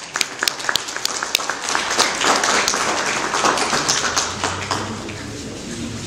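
Audience applauding: scattered single claps that quickly build into full applause, which dies away after about four seconds.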